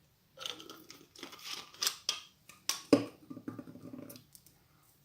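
Clear slime glue being poured and squeezed out of a plastic bottle into a container: about four seconds of uneven crackles and squishes, with one sharp click about three seconds in.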